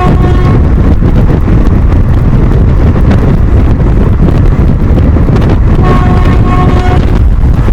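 Loud wind buffeting on the microphone over the steady rumble of a fast-running train. The WAP-4 electric locomotive's twin-tone horn ends about half a second in and blows again for about a second near the end.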